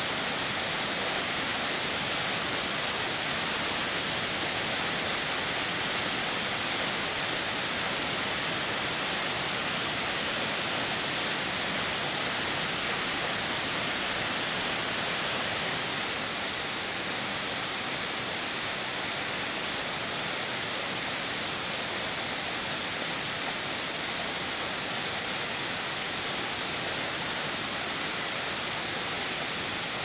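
Waterfall falling, a steady rushing hiss of water, dropping slightly in level about halfway through.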